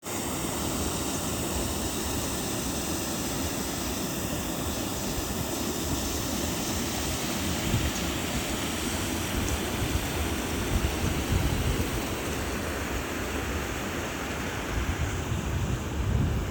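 Waterfall rushing steadily. Near the end, wind starts buffeting the microphone with uneven low rumbles.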